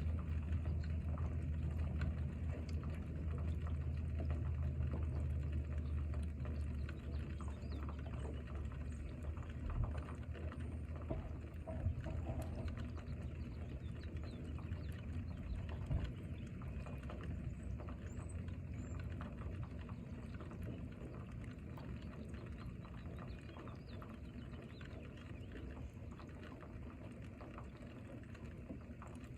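Rain falling, a steady patter of drops, with a deep rumble through the first ten seconds or so that then fades away. Faint high chirps come now and then, and the whole sound grows slowly quieter.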